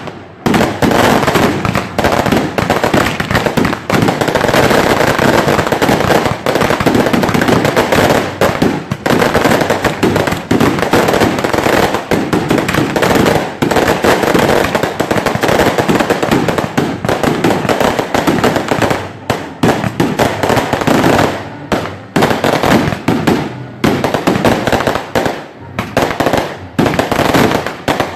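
A long, dense barrage of firecrackers going off in rapid, almost unbroken crackling bangs. In the last several seconds it thins out, with short gaps between bursts.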